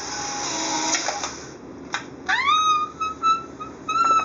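Polaroid OneStep instant camera's motor running for about a second and a half, ejecting the dark slide after a new film pack is loaded. About two seconds in, a high-pitched squeal rises and then holds, broken into several short notes.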